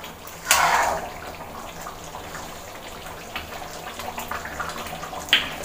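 Thick, reduced chicken curry gravy simmering and bubbling in an aluminium kadai. A spoon scrapes briefly through the pan about half a second in, and there is a sharp click near the end.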